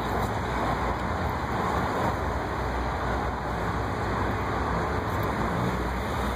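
Steady city street traffic noise, an even rumble with no single vehicle standing out.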